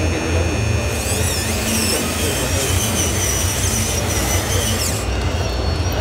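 Radio-controlled model construction machines working: a steady low rumble with several high, steady motor whines, the pitch wavering up and down about a second in and again near the end.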